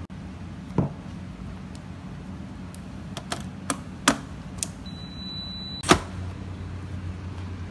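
Sharp clicks of an electric pressure cooker being plugged in and switched on at a wall socket, a steady high beep of about a second as the cooker powers up, then the loudest click as its lid is shut, near six seconds in.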